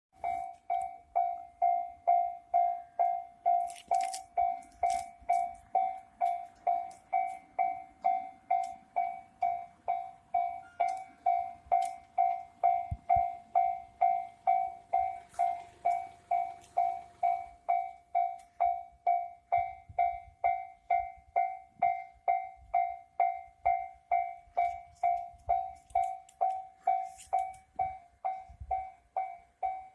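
Railway level crossing alarm ringing, a single fixed-pitch ding repeating about twice a second.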